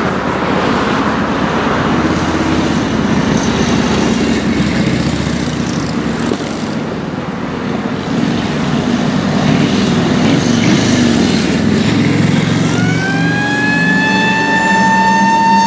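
Engines of WWII military vehicles, a jeep among them, running as they drive past. About three-quarters of the way in, a siren winds up, rising in pitch, then holds a steady wail.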